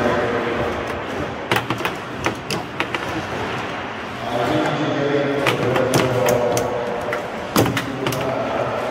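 Foosball table in play: the hard plastic ball cracks sharply against the rod-mounted players and the table walls, in a few quick clusters of knocks, with the rods rattling.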